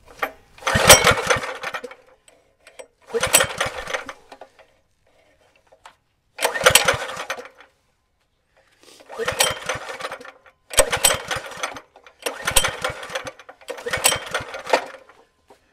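Small gas engine of a one-man earth auger being pull-started with its recoil starter, seven pulls of about a second each with pauses between. The engine turns over on each pull but does not catch.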